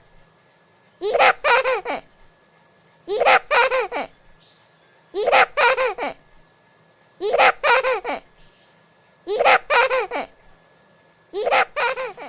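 A short high-pitched laugh of three quick notes, repeated identically about every two seconds, six times, like a looped laughter sound effect.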